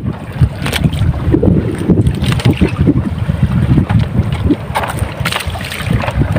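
Wind buffeting the microphone aboard a fishing boat at sea: a loud, constantly fluctuating rumble with scattered gusty crackles.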